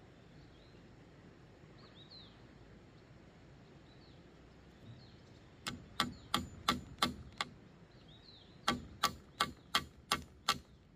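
Two runs of quick, sharp tool strikes on bamboo, about six in each at roughly three a second, with a short pause between. Faint bird chirps come before them.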